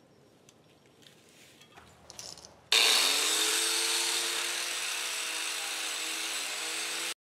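Corded angle grinder fitted with a wire brush starting up about three seconds in, its whine rising as the motor spins up, then running steadily with a bright hiss while it wire-brushes a cast part clean; it cuts off suddenly near the end. Faint handling clicks come before it.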